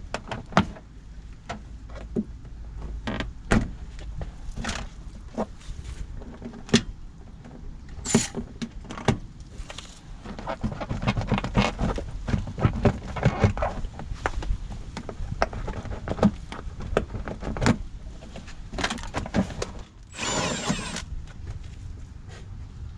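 Hand tools clinking and knocking against metal parts of a van, in irregular single strikes, with a dense run of rapid clicks in the middle and a short hiss near the end.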